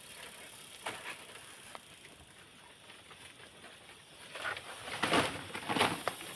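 Dry palm fronds and sticks rustling and crackling as they are dragged over the ground and dropped, in a loud run of scratchy bursts starting about four seconds in.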